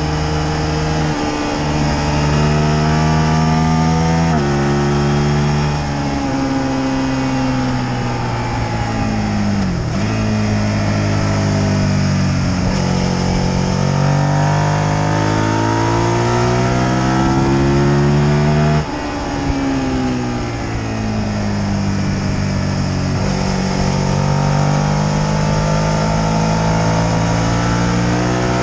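Sport motorcycle engine heard from on board at track speed, revving up and down through the gears: the pitch climbs, steps down abruptly at gear changes and sinks as the throttle closes for corners, over a steady rush of wind noise.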